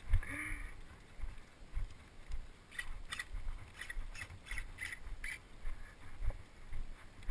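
A series of short sharp clicks or crunches, roughly two a second in the middle, over uneven low rumbling.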